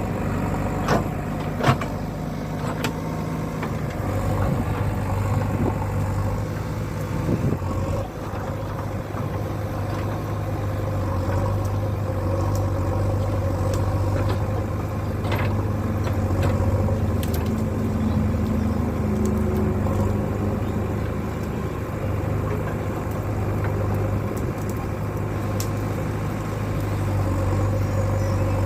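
Heavy diesel engine running steadily, growing louder about four seconds in, with scattered sharp clanks and knocks.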